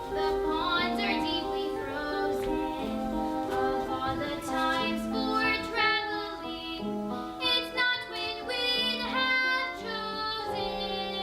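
A song: a voice sings a melody with held notes over musical accompaniment.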